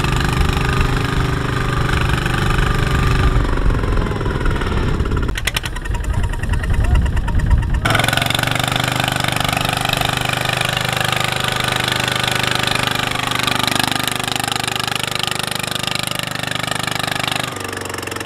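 Kubota ZT140 single-cylinder diesel engine of a two-wheel walking tractor running steadily with a knocking clatter as it drives the spinning wheels through deep mud. The engine sound changes abruptly about 8 seconds in and again near the end.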